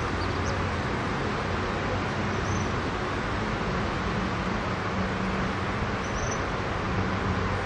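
Steady outdoor background noise with a faint low hum and a few faint, brief high chirps.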